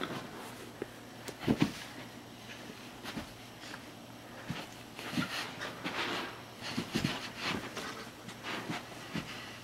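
Corgi puppy with the zoomies, scrabbling and scuffling about on carpet and panting. Irregular scuffles and thumps come throughout, the loudest thump about one and a half seconds in, and a busier stretch follows in the second half.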